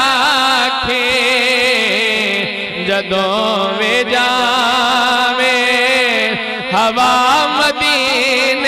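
Male naat singer singing drawn-out, wavering, ornamented notes into a microphone through a PA system, over a steady low drone.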